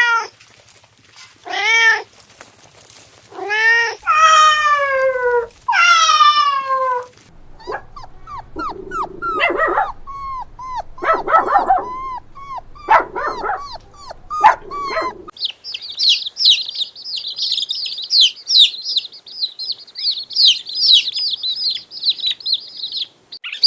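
Five loud drawn-out calls from a farm animal in the first seven seconds, each about a second long and falling in pitch. They are followed by many short calls and then a busy, continuous chorus of high-pitched peeping from young birds, most likely chicks.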